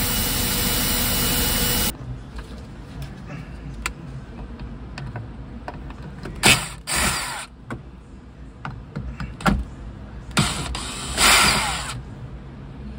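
Compressed air hissing steadily out of a leaking Bendix MV-3 dash brake valve, stopping abruptly about two seconds in. After that a power driver runs in several short bursts, with light clicks between.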